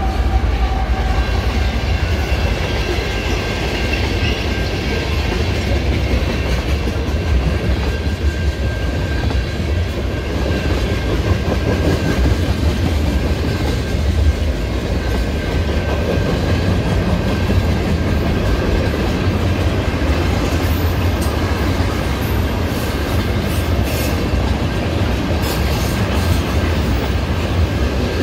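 Loaded tank cars of a CN freight train rolling through a grade crossing. Steel wheels give a steady heavy rumble and clickety-clack over the rail joints.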